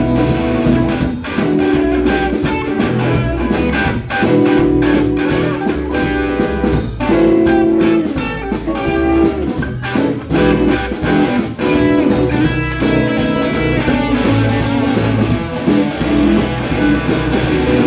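Live blues band playing an instrumental break: an electric guitar solo of held, bending notes over bass and a steady drum beat.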